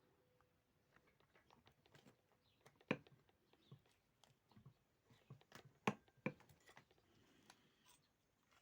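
Quiet workbench handling noise: scattered light clicks and taps of small tools and metal engine parts being handled, with a few sharper knocks about three seconds and six seconds in.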